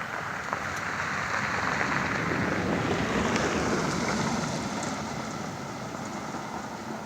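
A vehicle passing by on a road, its noise swelling to a peak about halfway through and then fading away.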